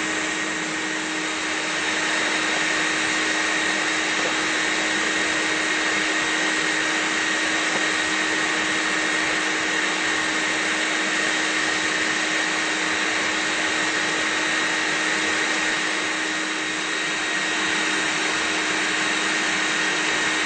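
Shop vacuum running steadily, used as a bee vacuum with its hose against comb covered in bees, a continuous rushing noise with a steady hum and a higher whine.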